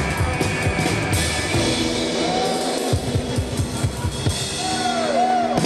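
Live rockabilly band playing: drum kit with bass drum, snare and cymbals to the fore, over upright bass and hollow-body electric guitar.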